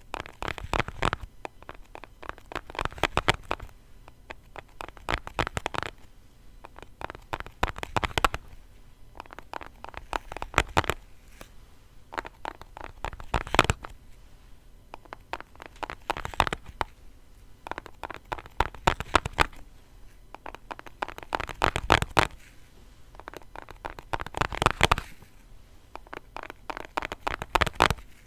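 Tapping on a small food-colouring box: quick flurries of light taps, one burst every two to three seconds.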